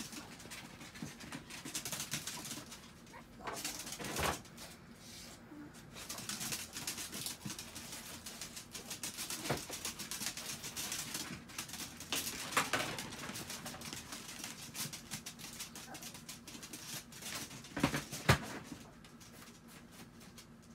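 Chihuahuas scampering about on a plastic tarp: paws scratching and rustling, with a sharp knock about four seconds in and two more close together near the end.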